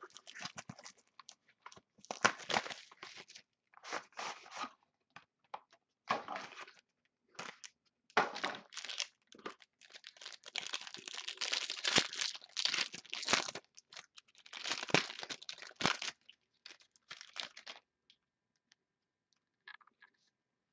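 Wrapper of a pack of football trading cards being torn open and crinkled: a run of irregular ripping and rustling bursts. These die down to faint handling of the cards in the last few seconds.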